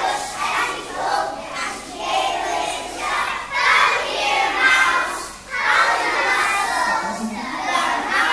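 A group of young children singing together.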